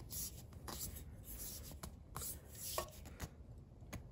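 A new Honda oil filter being turned by hand on its threaded mount on the engine, making faint scraping and rubbing sounds in a series of short rasps with a few light clicks.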